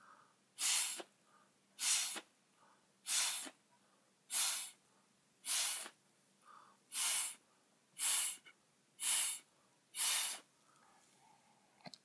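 Hard, short breaths blown through a plastic drinking straw, about nine quick hissing puffs roughly once a second, pushing wet white acrylic paint across the pour to draw it out into lacing.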